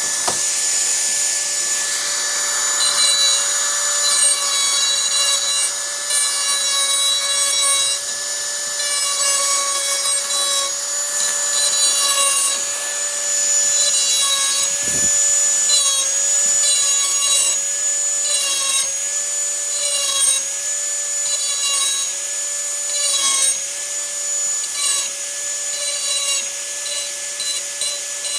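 Dremel 4000 rotary tool running with a steady high-pitched whine, its grinding bit sharpening a steel cutting blade in short repeated passes that add a rasping grind over the whine.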